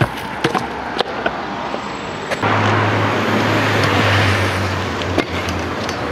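Stunt scooter wheels rolling over paving slabs, with sharp clicks at the joints. About two and a half seconds in, a louder rolling rush with a low hum starts suddenly, swells and then eases off.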